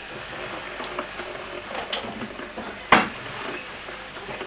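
Electric kettle heating water with a steady hiss. A single sharp clack comes about three seconds in, with a fainter click a second before it.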